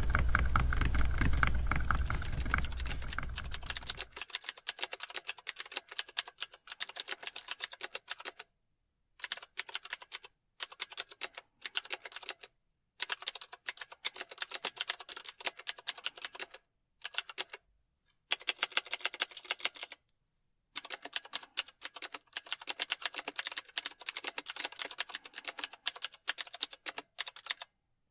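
Computer keyboard typing: rapid key clicks in runs of a few seconds, broken by short pauses. A loud low rumble runs under the first four seconds and cuts off about four seconds in.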